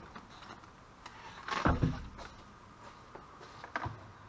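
Handling noises on an EZGO TXT gas golf cart: a dull clunk about one and a half seconds in, then light clicks near the end as the key switch is turned on. No starter solenoid click follows, which on this cart means no power is reaching the key switch.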